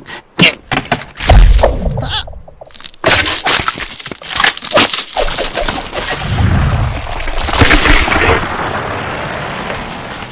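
Animated-film sound effects of ice being struck and cracking. A few sharp knocks and a heavy thud come about a second in. Then come several seconds of crackling, breaking ice over a low rumble, which fades near the end.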